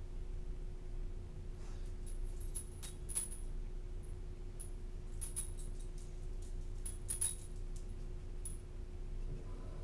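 Metal tags on a dog's harness jingling in several short bursts as the dog walks and sniffs, over a steady low hum.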